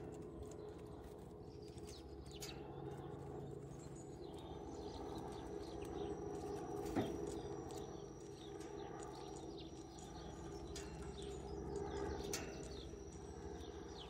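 Scattered sharp taps and clicks of tits pecking at peanuts through a wire-mesh feeder and hopping on the feeders, one louder knock about halfway through, over a steady low hum.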